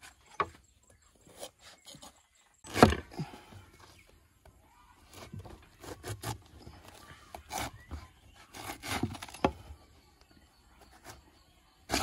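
Jackfruit being cut open with a cleaver on a wooden table: a heavy thud about three seconds in, a run of knocks and cutting sounds in the middle, and a loud chop at the very end.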